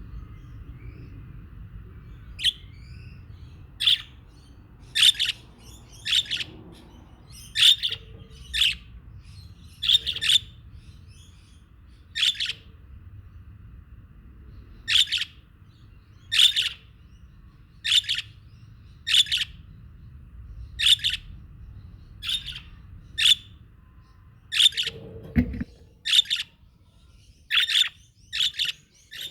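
Budgerigars giving short, sharp chirps, roughly one a second, beginning a couple of seconds in, over a low steady rumble. A brief low thump sounds near the end.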